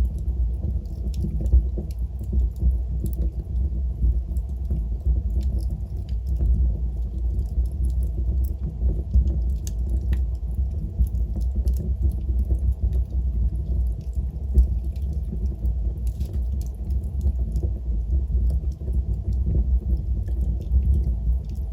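Wood fire burning in a fireplace: a steady low rumble of flames with scattered small crackles and pops throughout.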